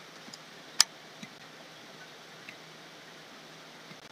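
Clicks from a digital drawing setup: one sharp click a little under a second in, then three fainter clicks spread over the next two seconds, over a steady low hiss.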